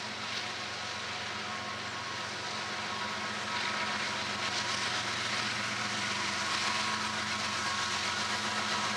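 Florida East Coast freight train led by four GE ES44C4 diesel locomotives approaching. The engines' drone and the rail noise grow gradually louder.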